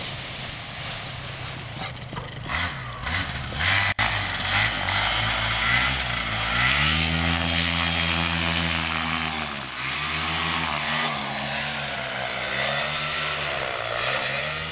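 Miniplane paramotor's Top 80 single-cylinder two-stroke engine and propeller running up for a foot-launched takeoff. The engine rises from a low, uneven throttle to a steady high pitch about six seconds in. The pitch dips briefly twice near the end.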